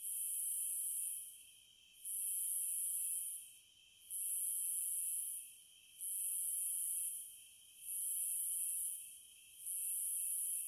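Cicadas buzzing in a repeating pattern. A high, shrill buzz starts sharply, holds for about a second and a half, then fades, coming back roughly every two seconds. Under it runs a steady, lower-pitched buzz.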